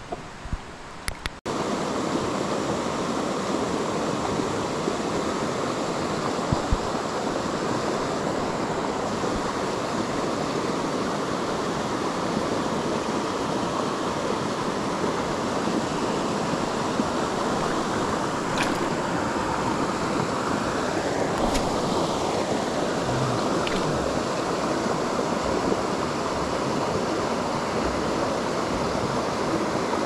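Steady rush of a rainforest creek running over a shallow riffle of rapids. It starts abruptly about a second and a half in, and a few faint ticks sound over it.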